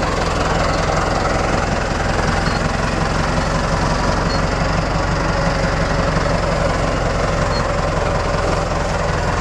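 Farm tractor engine running steadily, heard from on board the tractor, with a constant low drone.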